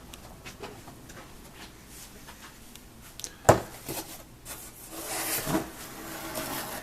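Kitchen handling noises: light clicks, one sharp knock about halfway through, then nearly two seconds of rustling hiss.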